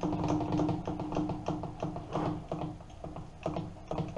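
Saddle of a Hafco AL-336 centre lathe being wound along the bed by its apron handwheel, rack and pinion freshly greased: irregular clicks and light knocks over a steady hum that fades toward the end.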